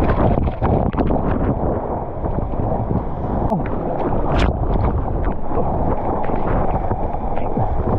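Sea water rushing and splashing around a mouth-mounted GoPro in its waterproof housing as a surfboard pushes through broken whitewater. Many small sharp ticks of spray and droplets hit the housing.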